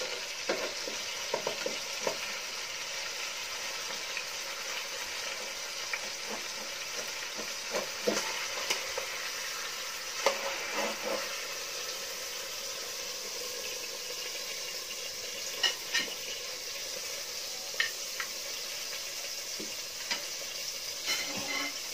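A whole chicken frying in hot oil in a metal pot, a steady sizzle, with scattered clinks and scrapes of a slotted spatula against the pot as the chicken is turned and lifted out.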